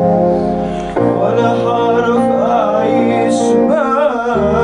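A male singer performs an Arabic pop ballad over sustained accompanying chords. His ornamented, wavering vocal line comes in about a second in, and the chords change near the end.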